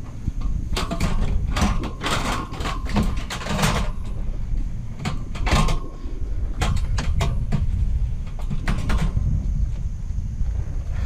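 Pieces of scrap metal clanking and rattling as they are handled and dropped, several knocks leaving a short ringing tone, over a steady low rumble.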